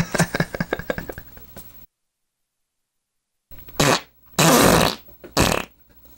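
A fart sputtering out in a quick run of fading pops, then a stretch of dead silence, then three more farts, the middle one the longest.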